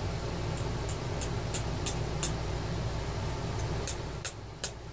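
Light, sharp clicks, about three a second and then a few more near the end, as the metal tabs on a replacement battery cell are squished down flat against its top. A steady low hum runs underneath.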